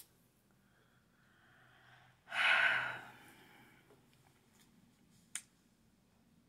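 A woman's heavy sigh: a faint breath in, then a loud breathy exhale about two seconds in that fades over about half a second. Short clicks at the start and near the end.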